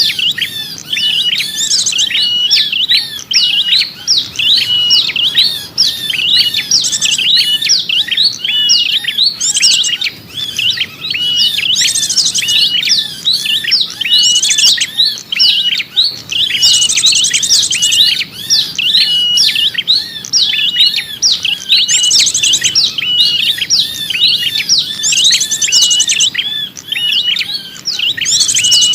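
Small songbirds chirping rapidly and continuously, a lure recording used to attract small birds, with a short high buzzy trill cutting in every two to three seconds.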